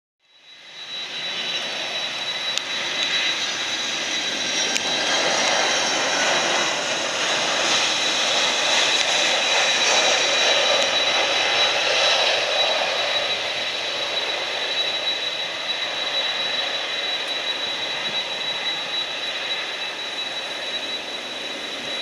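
Jet airliner engines running at a distance, fading in at the start, swelling to their loudest around the middle and easing off, with a thin steady high whine throughout.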